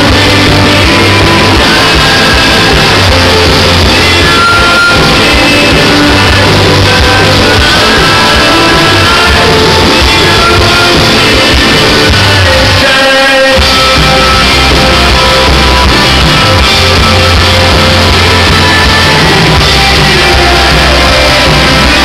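Rock band playing live: electric guitars, drums, bass and a lead vocal, recorded loud and distorted on a camera's microphone. About halfway through the bass and drums drop out for a moment before the full band comes back in.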